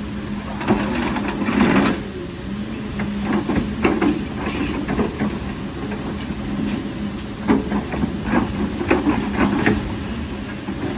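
Excavator's diesel engine running steadily, with clusters of sharp knocks and clanks about a second in, around four seconds in, and again from about seven to ten seconds in.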